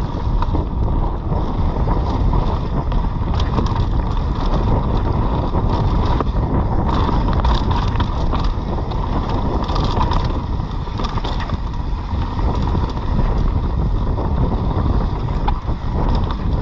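Wind buffeting the microphone of a mountain bike rider's camera during a fast descent, a steady low rumble, with tyre noise and many scattered clicks and rattles from the bike over the wet trail.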